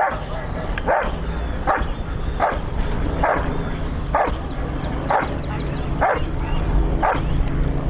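A German Shepherd-type working dog barking over and over in a steady rhythm, about one bark a second, eight barks in all.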